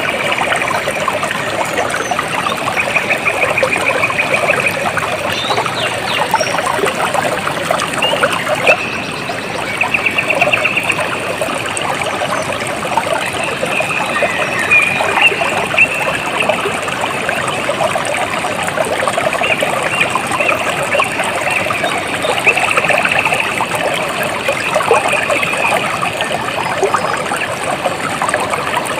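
Water trickling and babbling steadily over stones, a dense spatter of small splashes. High, rapid trills from a small animal come in every few seconds over it.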